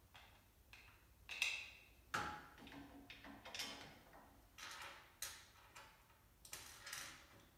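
Several light, irregular clicks and knocks of small nuts and bolts and a plastic tray support being handled and fitted onto a tubular metal wheelbarrow frame. The sharpest knock comes about one and a half seconds in.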